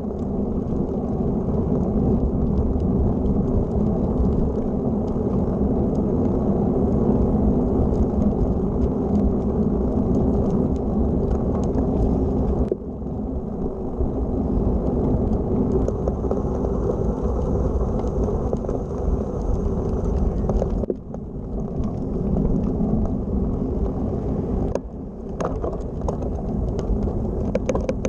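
Steady low rush of wind on the microphone mixed with the tyre noise of a road bike rolling along a sealed path, easing briefly a few times. A few sharp clicks near the end.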